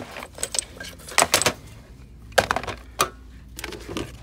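Hands rummaging through toys on a store shelf: a string of irregular knocks, clatters and rustles as plastic toys, a plastic bucket among them, are moved and bump against each other.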